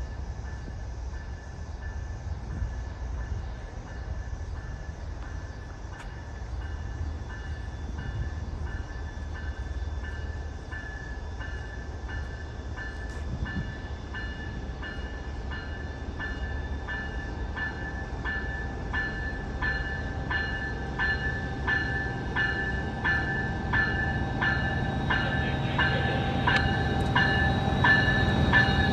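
Amtrak passenger train led by a Siemens Charger locomotive approaching, with a bell ringing steadily at about one and a half strokes a second. The bell and the low rumble of the train both grow louder toward the end.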